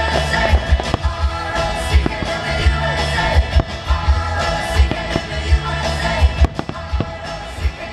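Music with singing over a steady beat.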